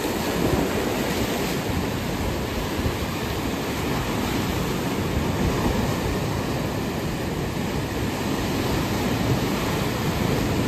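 Rough sea surf: waves breaking and foaming over a rocky shoreline in a steady rushing wash.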